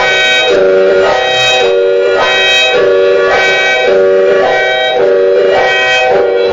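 Emergency alert melody: a loud, reedy, organ-like tone playing sustained notes that step up and down about twice a second in a repeating pattern.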